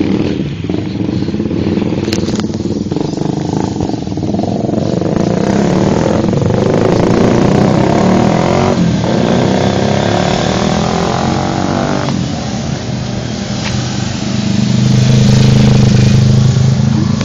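Motorcycle engines running close by on the road, their pitch rising and falling as they pass, with one engine at its loudest and steadiest near the end.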